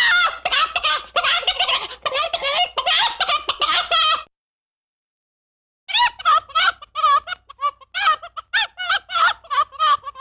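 Cartoon chicken sound effect: a fast, dense run of squawking clucks for about four seconds, a pause of about a second and a half, then a string of short, separate clucks.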